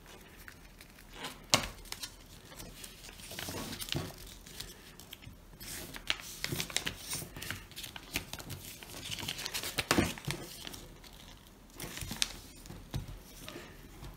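A sheet of A4 paper being folded and creased by hand: irregular crinkling rustles with sharp crackles as folds are pressed flat, the loudest snap about ten seconds in.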